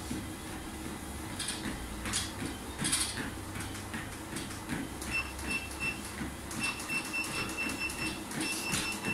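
Motorized treadmill running, its motor humming steadily under the rhythmic thud of footfalls on the moving belt. From about halfway, a high tone pulses in quick repeated runs.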